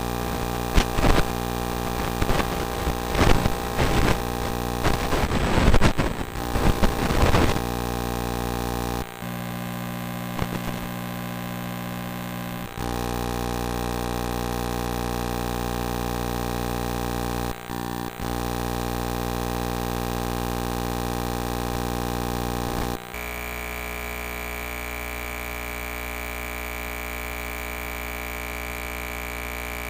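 Steady electrical hum and buzz, with irregular crackling clicks over the first several seconds. The hum shifts in level a few times, and a thin high tone joins it in the last third.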